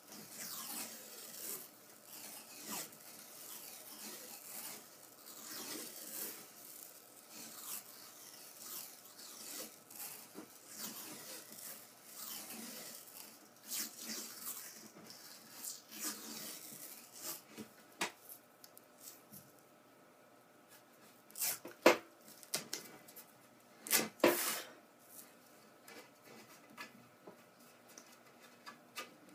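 White cloth hockey tape being pulled off the roll and wrapped around the knob of a hockey stick: a series of short ripping rasps, with two louder sharp rips near the end.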